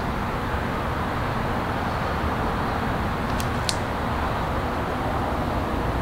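Steady outdoor background noise, with two short crinkles of the thin plastic protective film being handled about three and a half seconds in.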